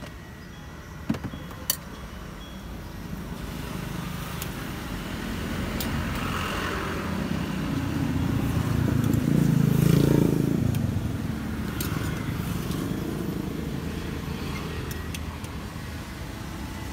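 Road traffic passing the stall: a vehicle's engine and tyre rumble grows louder to a peak a little past the middle, then fades away. A couple of sharp clicks sound near the start.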